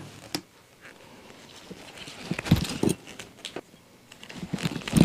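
Scattered clicks and light knocks of a hand wire stripper/crimper and wire being handled on a workbench, with a louder knock near the end.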